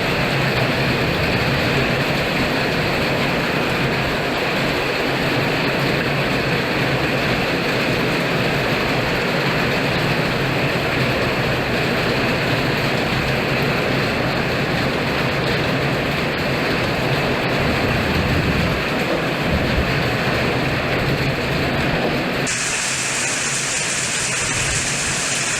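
Summer storm: strong wind and heavy rain, a steady loud rushing noise. About 22 seconds in the sound shifts to a thinner, hissier rush.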